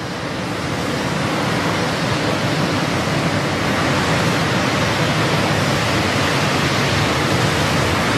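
Steady, even rushing noise with no tune or voice in it, swelling over the first second and then holding level.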